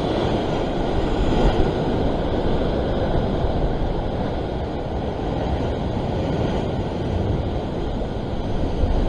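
Steady rumbling noise of wind buffeting the microphone together with ocean surf, with no distinct events.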